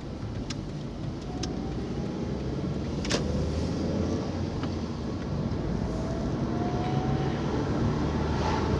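Car driving along: a steady engine and road-noise rumble that slowly gets louder, with a faint rising whine midway and a single sharp tick about three seconds in.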